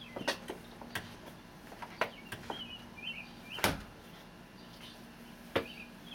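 A front door's brass handle and latch clicking and knocking as a small child works the door, several sharp knocks with the loudest about three and a half seconds in, and short high chirps around them.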